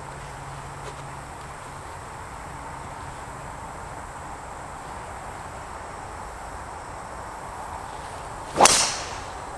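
Faint steady outdoor background, then near the end a golf club swung through and striking the ball: one sharp hit with a short swish.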